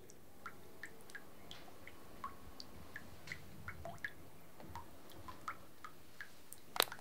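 Water dripping irregularly, small plinks of varying pitch two or three times a second, with a sharp click near the end.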